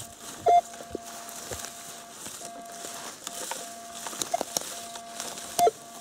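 Metal detector's steady threshold tone, broken by short gaps, with three louder beeps as the search coil passes over buried metal: one about half a second in, one past four seconds, and one near the end. Scattered clicks run over it.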